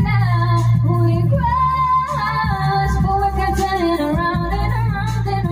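A woman singing karaoke into a microphone, holding long, gliding notes over a backing track with a steady bass line.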